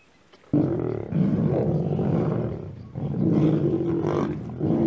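Lions growling at a kill. The growling is loud and starts about half a second in, with a brief break near the three-second mark.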